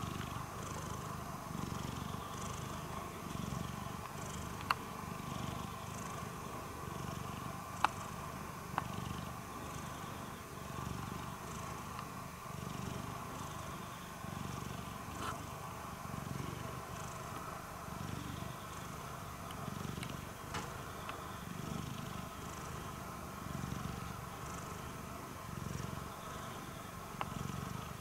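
Domestic cat purring steadily, the low purr swelling and easing with each breath. A few short sharp clicks sound over it, the loudest about five and eight seconds in.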